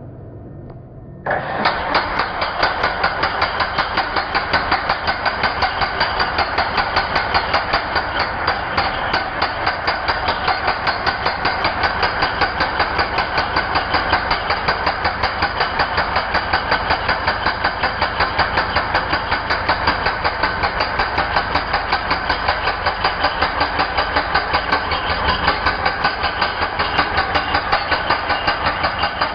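Ingco 16 kg concrete breaker (demolition hammer) starting up about a second in and then hammering steadily, a fast, even chatter of blows.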